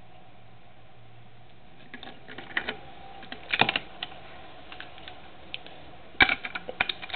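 Plastic Lego bricks clicking and clattering as they are handled and pressed onto a build, in irregular clusters of sharp clicks starting about two seconds in, the loudest near the end.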